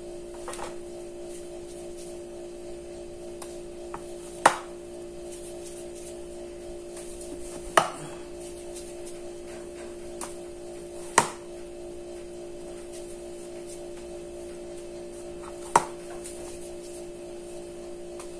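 Four sharp knocks a few seconds apart, from hands and bowls on a kitchen counter while dough balls are rolled by hand, over a steady low hum.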